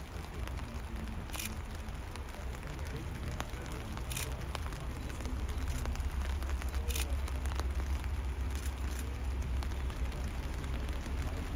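A locomotive moving slowly past in a parade: a low rumble that grows louder about halfway through, over a crackly background, with a short sharp click about every three seconds.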